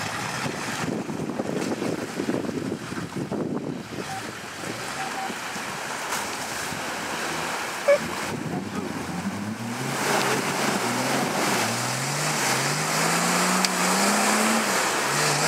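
Off-road 4x4's engine and water splashing as the vehicle wades through a muddy pool, with a single sharp knock about eight seconds in. After that the engine revs hard in repeated rising surges as it climbs out up a steep mud bank.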